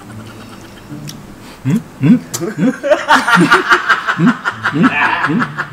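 A woman laughing in a run of short, rising giggles, about three a second, starting about a second and a half in.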